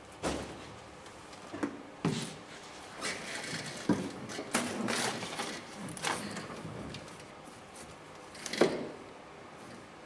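Boots shuffling and knocking on a vehicle's floor pedals, with clothing rustling, as a person settles into the driver's seat and tries out the pedals. Several sharp knocks are scattered through it, the loudest near the end.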